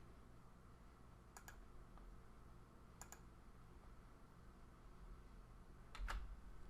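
Near silence: room tone broken by a few faint computer mouse clicks, spaced one to three seconds apart.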